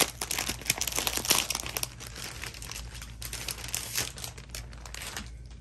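Plastic shrink wrap crinkling as it is handled and pulled off a spiral-bound game book: a dense run of crackles, busiest in the first two seconds and thinning out toward the end.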